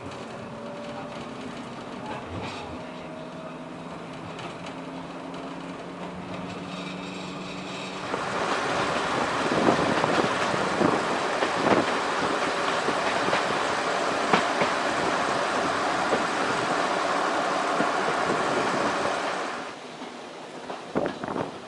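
Train passing close by on a heritage railway: a steady hum at first, then about eleven seconds of loud rolling noise with wheels knocking over the rail joints, which drops off sharply near the end.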